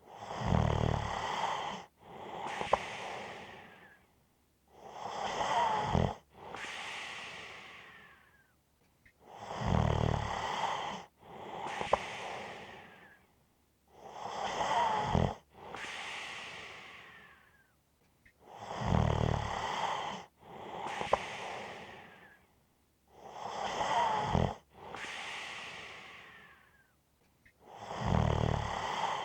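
A sleeping person snoring in a steady rhythm, about once every five seconds. Each breath is a loud, low-pitched snore followed by a longer breathy sound that fades out before the next one.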